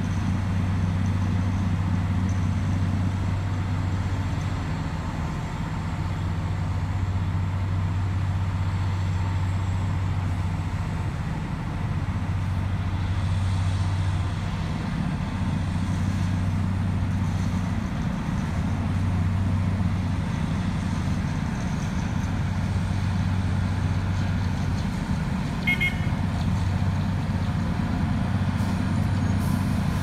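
Diesel engines of an asphalt cold milling machine and the dump truck it is loading, running steadily as the machine grinds up the old road surface, with a low, even drone. Near the end there is a brief high chirp.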